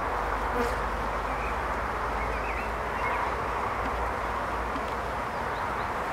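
Honeybee colony buzzing steadily from an open hive with its brood frames exposed.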